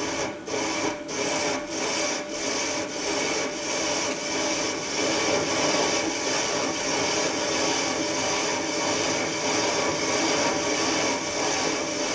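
Vertical lathe cutting a spinning metal workpiece: the tool bites in at the start with an uneven scraping, a couple of pulses a second for the first few seconds, then settles into a steady cutting hiss over the machine's running.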